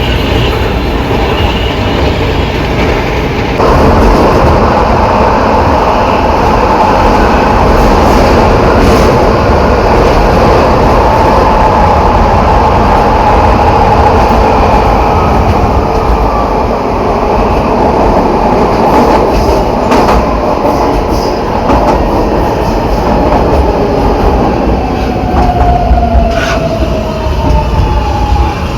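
São Paulo Metro train 225 braking: the traction motors and inverter run with a tone that slowly falls in pitch as the train slows, under an unusual growl that the uploader puts down to the reduction gearbox. The overall noise steps up about three and a half seconds in, with a few sharp clicks later on.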